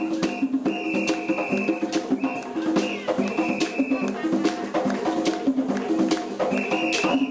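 African-style drum-and-percussion music with a steady, busy beat of drums and shakers, short pitched notes and a short high held note that comes back every second or two.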